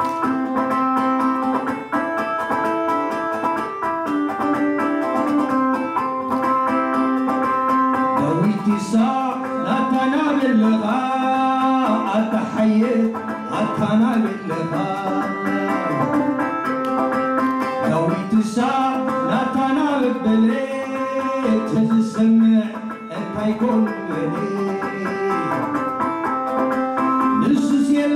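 Krar, the Eritrean bowl lyre, plucked in a repeating melodic figure, with a man singing over it from about eight seconds in.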